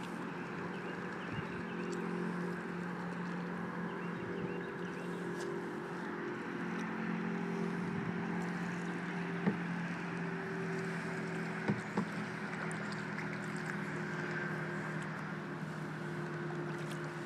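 Small boat motor running steadily with a low hum, its pitch shifting up slightly about ten seconds in, over a constant rushing noise; a few brief knocks near the middle.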